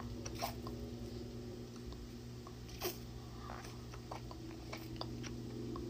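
Faint small pops and sucking clicks from a silicone lip-plumper cup being sucked against the lips, the loudest about three seconds in, over a low steady hum.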